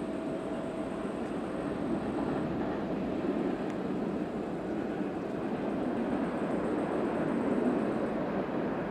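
Airbus A319-114's CFM56 jet engines heard from a distance during the landing rollout: a steady rushing engine noise that grows slightly louder past the middle.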